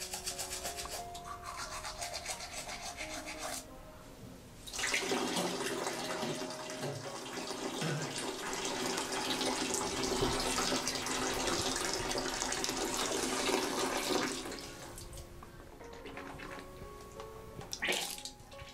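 Teeth being brushed, a quick rhythmic scrubbing, then water running for about ten seconds, over soft background music. A short loud burst comes near the end.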